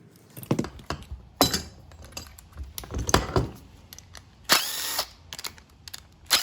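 Several sharp clanks and knocks of metal parts being handled, then a power drill runs in a short burst of about half a second, about four and a half seconds in, while a microwave's fan motor is taken apart for scrap.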